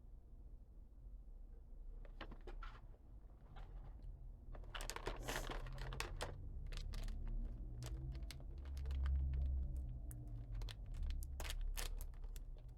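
A wrapped sweet being opened: a snack wrapper torn and crinkled, with scattered sharp rustles and clicks and one longer tearing stretch about five seconds in.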